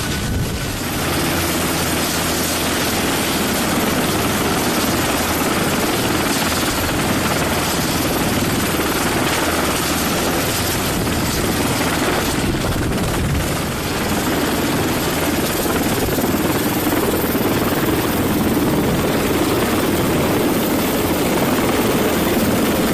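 Coastguard helicopter running, a steady loud rotor and turbine noise with a fast rhythmic chop underneath.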